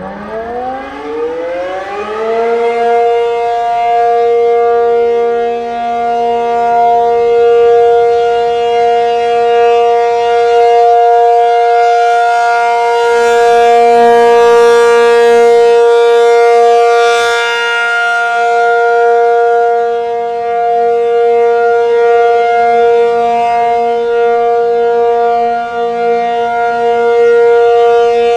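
American Signal T-135 outdoor warning siren on an AC/P-50 rotator winding up, its pitch rising for the first couple of seconds. It then holds a steady two-tone chord, the siren's 1-minute alert test signal, swelling and fading slowly as it rotates.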